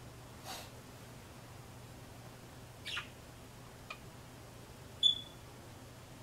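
Small pet birds in a cage giving a few brief, scattered chirps, the loudest a short, clear, high chirp about five seconds in.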